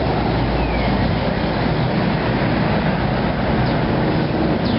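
Steady roar of street traffic with a low engine hum.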